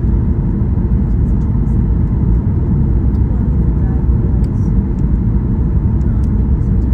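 Steady low rumble of airliner cabin noise, the jet engines and rushing air heard from inside the passenger cabin.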